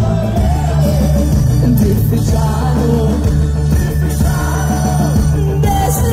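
Live schlager-pop band playing over the PA, with electric guitar and keyboards under a steady beat and a woman singing the melody into a microphone.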